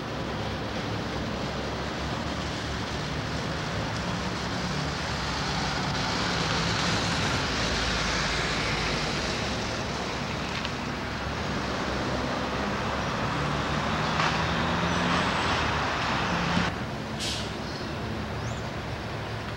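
G12 diesel-electric locomotive's engine running steadily as it draws a passenger train slowly into the station and stops, with the train's running noise swelling and easing twice. A short hiss comes near the end.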